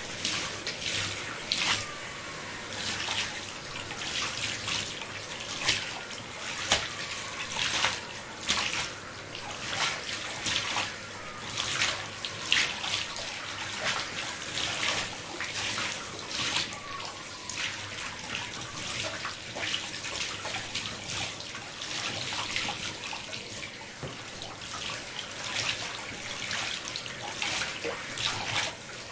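Water running from a tap into a sink, with a steady hiss and frequent irregular splashes.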